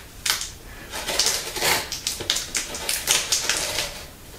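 Fingers scratching and picking at packing tape on a cardboard box, trying to lift the tape's end: a run of short, irregular scratchy strokes.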